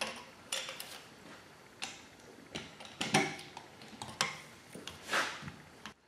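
Irregular metal clinks and clanks as valve springs, keepers and valves are taken out of a Vortec 8.1 cylinder head with a valve spring compressor. The loudest knocks come about three seconds in and again just past five seconds.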